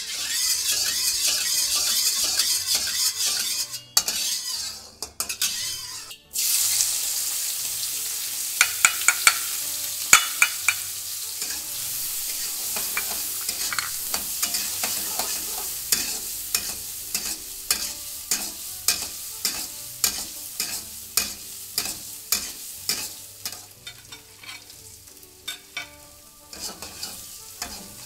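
Minced garlic and ginger sizzle in hot oil in a metal wok. About six seconds in, a sudden louder burst of sizzling marks frozen mixed vegetables going into the oil. Then comes steady frying, with a metal spatula repeatedly scraping and clinking against the wok as the vegetables are stirred.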